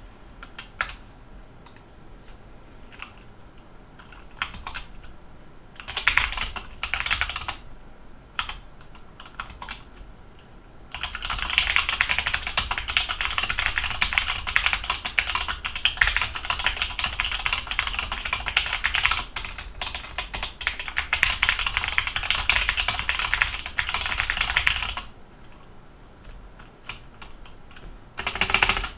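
Stock HK Gaming GK61 60% mechanical keyboard, with Gateron optical brown switches and double-shot ABS keycaps, being typed on. There are scattered single keystrokes for the first ten seconds or so, then fast continuous typing for about fourteen seconds, and a short burst near the end. It is a clickety-clack sound, which the owner puts down to the stock stabilizers and to a metallic ping from the unmodified switch springs.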